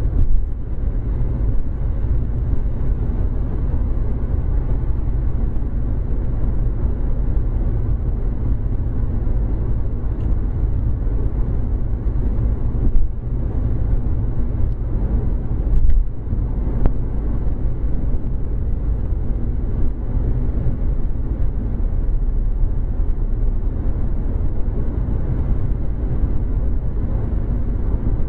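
Steady road and engine noise inside a car's cabin while cruising at highway speed: a low rumble, with a couple of brief thumps around the middle.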